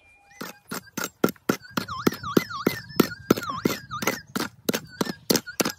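Rapid digging strikes into gravelly ground, about three or four a second, with a metal detector's tone warbling up and down behind them.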